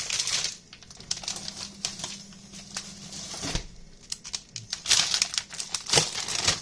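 Plastic packaging crinkling and rustling as it is handled, with a couple of short knocks, one about halfway through and one near the end.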